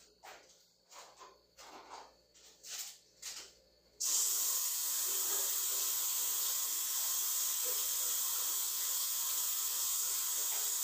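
A few soft scuffing footsteps, then running water turned on about four seconds in: a sudden, loud, steady hiss of spraying water that holds evenly.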